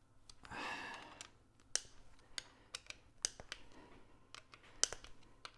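Hand tools working on an engine's cam bearing cap bolts: a short rustling scrape about half a second in, then scattered light metallic clicks and taps at irregular intervals.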